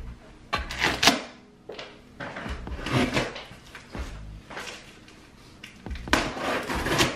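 Clattering and knocking as a drawer is opened and shut and a tool is taken from it, followed near the end by knocks and scraping on the taped top of a large cardboard box as it is worked open.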